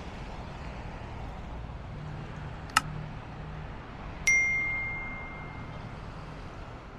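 A single clear ding: one pure bell-like tone that strikes about four seconds in and rings down over about two seconds. It comes over a steady low background hum, with a sharp click a little before it.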